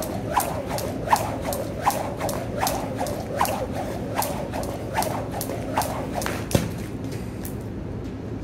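Jump rope skipping: the rope slapping the floor in a steady rhythm of about two to three strikes a second, every other one louder, stopping suddenly about six and a half seconds in.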